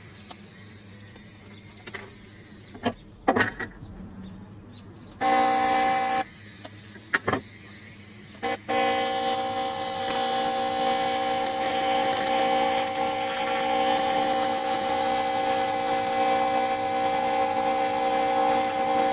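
Welding arc on aluminium, a steady buzz over a hiss. It strikes briefly about five seconds in, stops, then holds steadily from about nine seconds in. In the quieter stretch before it there are a few sharp clicks.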